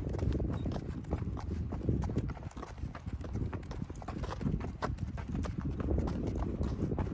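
Hoofbeats of a ridden horse moving along a packed dirt road: a steady run of short, sharp hoof strikes.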